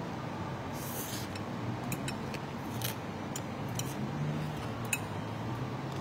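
A person slurping noodles about a second in, then chewing, with several short sharp clicks, over a low steady hum.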